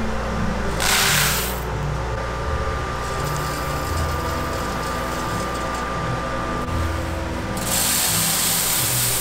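Roasted coffee beans pouring and rattling: a short rushing burst about a second in, then a longer one near the end as a basketful is tipped into a steel hopper, over a steady machine hum.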